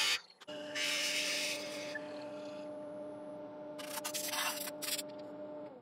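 Wood lathe running with a steady hum while a compressed-air blow gun hisses in blasts: a long blast about a second in, then short sharp ones around four seconds in. At the very end the lathe's hum starts to drop in pitch as it spins down.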